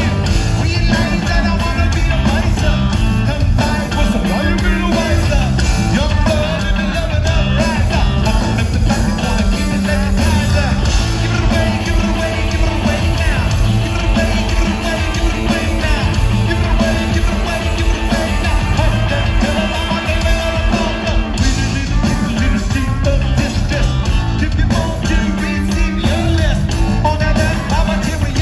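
Loud live rock band playing continuously, with electric guitar, bass and drums and singing over them.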